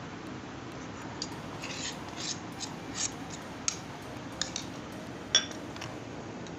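Metal spoon scraping and clinking against a small bowl as tamarind chutney is scooped out and poured over chickpea chaat: a run of light clicks and scrapes, with one sharper clink about five seconds in.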